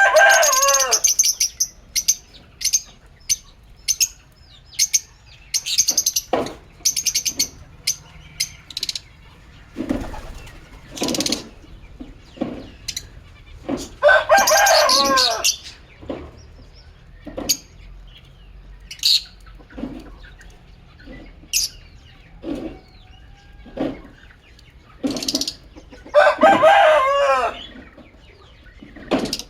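Lovebirds calling in short, sharp, high chirps at irregular intervals. Three times, near the start, about halfway and near the end, this breaks into a longer bout of shrill chattering.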